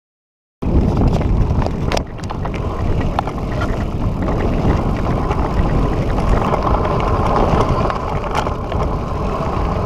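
Mountain bike being ridden, heard through an on-board camera microphone: steady wind and rolling rumble with scattered sharp knocks from the bike over the trail. It starts abruptly about half a second in.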